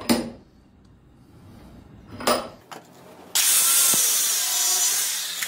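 Two short knocks, then, about three seconds in, a Makita angle grinder's cutoff disc starts cutting a metal nut clamped in a vise: a sudden, loud, steady grinding hiss with a high whine.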